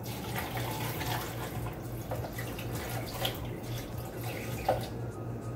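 Water pouring steadily from a plastic pitcher into a plastic blender jar over chopped beetroot and carrot.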